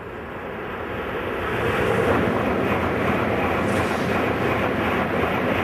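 N700 series Shinkansen passing through a station at speed: a rushing noise that builds over the first two seconds as the train nears, then holds loud and steady as the cars stream past.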